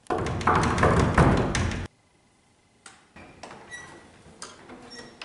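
A loud crackling, rustling noise with many sharp clicks for about two seconds, cut off abruptly. After a short near-silence, faint clicks and knocks as a white panelled door is unlatched and swung open.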